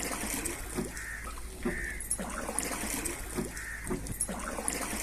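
Oars of a rowing boat dipping and pulling through river water, about one stroke a second, with water splashing and trickling off the blades.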